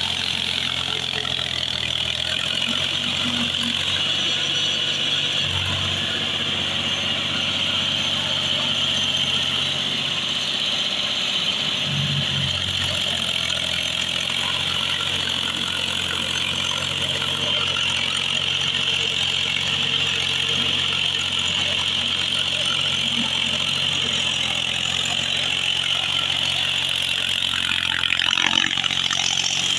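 Mahindra 275 DI tractor's three-cylinder diesel engine running steadily under load as it drags a puddler through flooded paddy mud.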